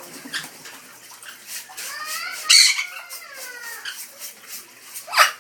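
Amazon parrots splashing in bath water, with repeated quick splashes and a loud splash about halfway through. Short chattering calls run through it, and there is a sharp rising squawk near the end.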